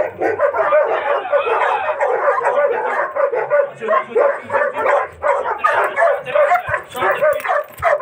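Guard dog barking rapidly and without pause, worked up during attack and bite training.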